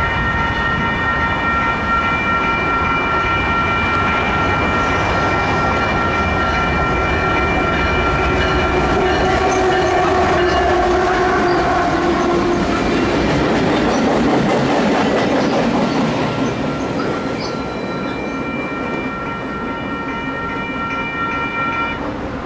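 Union Pacific geometry train passing through a station, its diesel locomotive and wheels on the rails growing louder to a peak about halfway through, then fading. A grade-crossing warning bell rings steadily throughout and stops shortly before the end.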